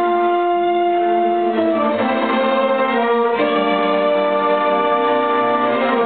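An orchestra with bowed violins and cellos playing long, sustained chords. The harmony shifts to a new chord about one and a half seconds in and again about three and a half seconds in.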